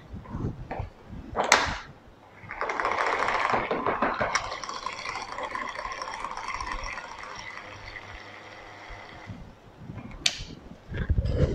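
Electric immersion (stick) blender running in a jug of raspberry chocolate ganache for about seven seconds, blending it to make it smoother. Its motor starts strong, then settles to a lower steady hum. There is a sharp clink a moment before it starts and another just after it stops.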